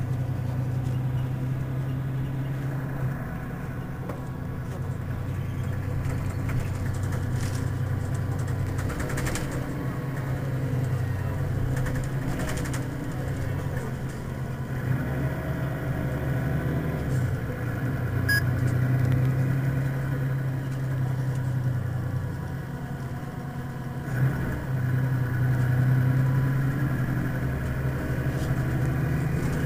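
Mercedes-Benz Citaro city bus idling at a stop, its engine giving a steady low hum.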